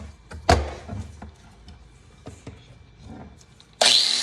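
Handling knocks and taps, one sharp knock about half a second in. Near the end a power tool starts up abruptly, with a slightly rising whine that settles into a steady run, as it begins cutting away the plastic belt-clip mount on a tape measure's case.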